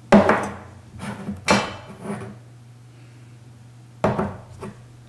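Metal coffee tins and a canister lid being handled and set down on a table: a handful of short knocks and scrapes, the loudest right at the start and another about four seconds in.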